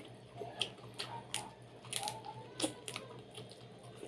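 Eating sounds from chewing boiled chicken: irregular, sharp, wet mouth clicks and smacks, about a dozen in four seconds.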